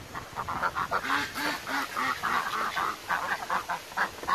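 A flock of domestic ducks quacking, with many short, overlapping quacks throughout. About a second in comes a run of about five lower quacks in quick succession.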